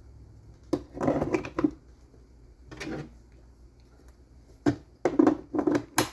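Hard plastic knocks and short scrapes in several bursts, as a cordless drill and its battery pack are slid into and pulled out of a 3D-printed wall-mount holder.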